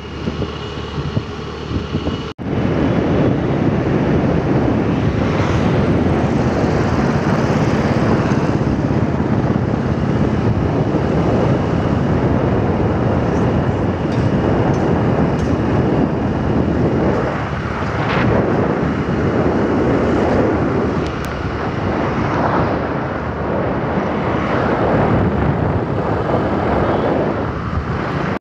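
Steady wind noise buffeting the microphone while riding a moving vehicle, with the engine and road noise underneath; there is a brief break about two and a half seconds in.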